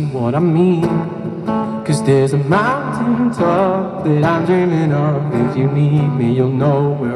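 Live pop song played on two strummed acoustic guitars, with a male voice singing a melody over them.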